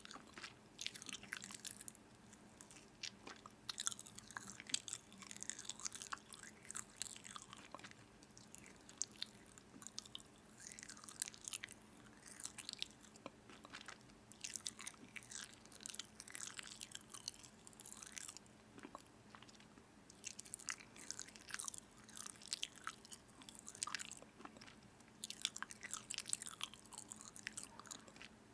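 A person chewing and biting into food, with many short, sharp crunching clicks coming at irregular intervals.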